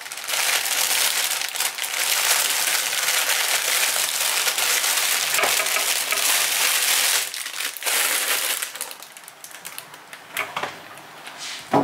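Thin plastic produce bag crinkling and rustling as bok choy is handled inside it and pulled out. The crinkling stops about eight seconds in, leaving quieter handling sounds.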